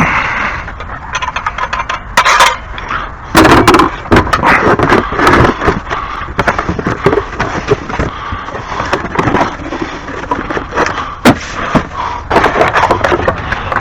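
Repeated knocks, clatters and scraping of hard objects being moved and shifted by hand, with several sharp bangs.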